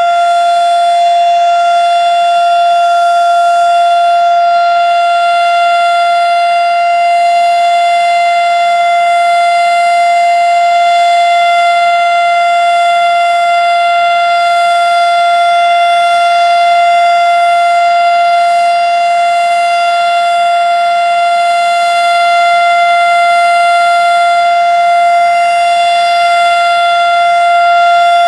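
Erick 2-horsepower mechanical fire siren sounding at full speed, holding one steady, unchanging pitch with strong overtones: the steady Alert signal.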